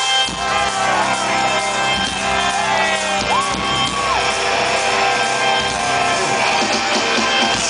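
Rock concert opening: loud music with long held tones, while the crowd shouts and whoops over it; one long held cry rises about three and a half seconds in.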